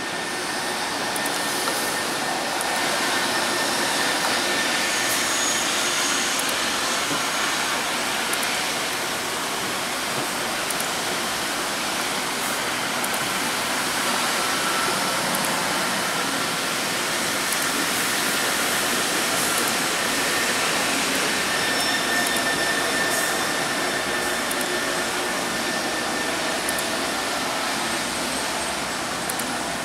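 Rubber-tyred Wenhu Line metro train running along the elevated concrete guideway past the station: a steady whooshing hum with a thin whine at times.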